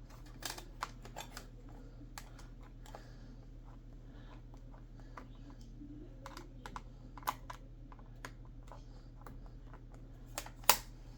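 Small irregular clicks and ticks of a precision Torx screwdriver working small screws inside a Dell XPS laptop, with a sharper click near the end, over a low steady hum.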